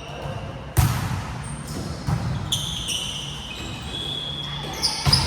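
Volleyball play on an indoor court: a sharp ball hit about a second in, lighter hits later, and short high squeaks of shoes on the court floor, echoing in the hall.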